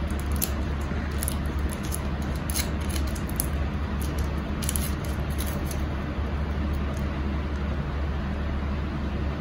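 Foil wrapper of a Hershey's Kiss crinkling as it is peeled off by hand: scattered small crackles, thinning out after about five seconds, over a steady low hum.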